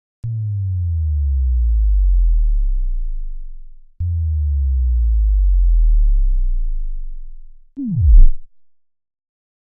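Synthesized bass drop sound effects: two deep bass tones, each sliding slowly downward in pitch and fading over about three and a half seconds, the second starting about four seconds in. Near the end comes a short, fast downward-sweeping drop, the loudest of the three.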